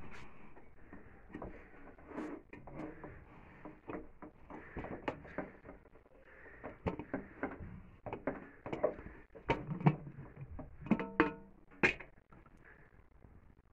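Background music on a plucked string instrument, with quick notes and a few ringing ones near the end.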